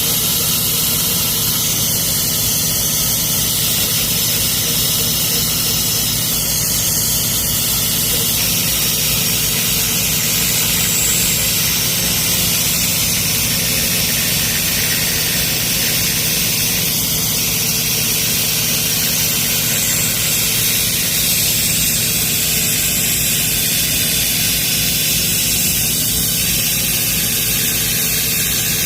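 Hwawoo FA-960 CNC engraver's spindle running steadily, its end mill cutting 10 mm acrylic: a constant whine with a hiss over it.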